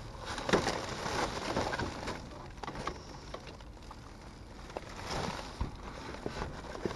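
Junk being shifted by hand in a packed dumpster: cardboard signs, plastic and thin metal rods rustling and knocking together in irregular scrapes and clatters. It is busiest in the first couple of seconds and again about five seconds in.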